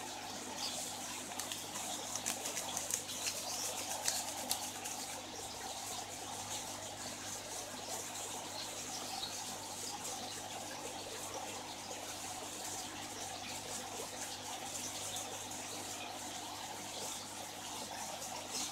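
Aeration bubbling in a fish tub: air bubbles rising from two underwater outlets and breaking at the surface in a steady trickle, over a low steady hum. A few sharper crackles come between about two and five seconds in.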